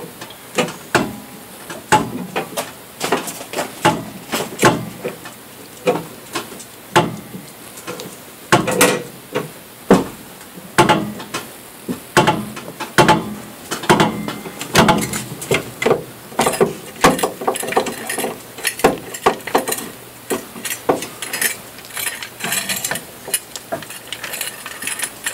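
Repeated metallic clinks and knocks of tyre-changing hand tools being worked at a car's wheel, such as a lug wrench on the lug nuts and the jack, about one or two a second with irregular spacing.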